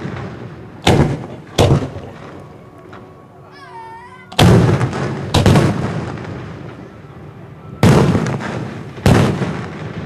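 Aerial firework shells bursting overhead: six loud bangs in three pairs, each trailing off in a long rolling echo.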